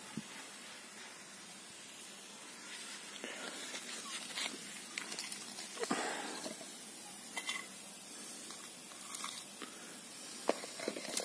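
Soft rustling tumble of blackberries tipped from a plate into a bowl about six seconds in, with scattered light clicks and knocks of handling over a steady faint hiss.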